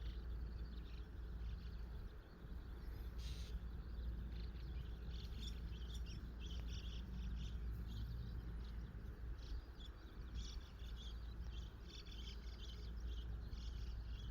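Outdoor ambience: small birds chirping in quick, repeated high calls, thickest from about a third of the way in, over a steady low rumble.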